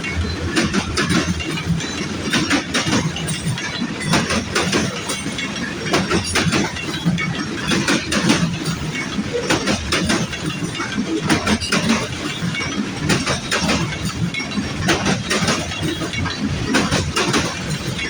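Freight train cars rolling past, with steel wheels knocking and clicking over the rail joints.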